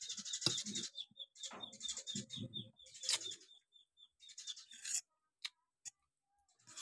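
Metal fork scraping and twirling spaghetti on a ceramic plate, with chewing and wet mouth sounds, through a quick run of faint high chirps in the first four seconds. About five seconds in it goes almost silent apart from a few light clicks.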